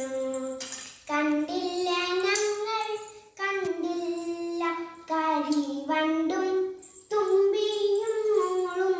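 A young girl singing a Malayalam poem without accompaniment, in phrases of long held notes with short breaths between them.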